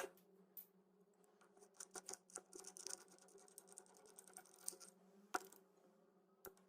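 Near silence: faint scattered clicks and light scratching over a low steady hum, with the scratchy rustle thickest from about two to five seconds in.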